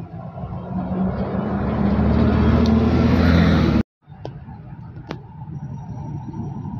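Articulated Iveco city bus driving past close by, its engine note climbing and the noise building as it pulls away. About four seconds in the sound cuts off abruptly and gives way to a much quieter street background, with two sharp clicks.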